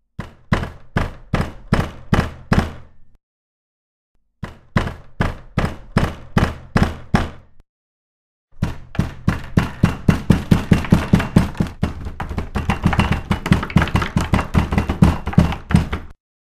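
Rhythmic knocking: two runs of evenly spaced knocks, a few a second, each broken off by silence, then from about eight seconds in a faster, denser run of knocks that stops sharply near the end.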